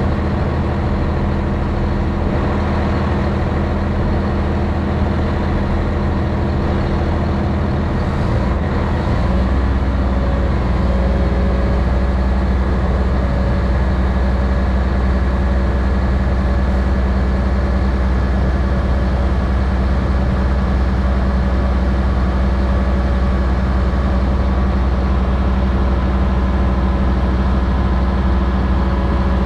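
Heavy diesel truck engine idling steadily, its low rumble growing a little deeper and stronger about nine seconds in.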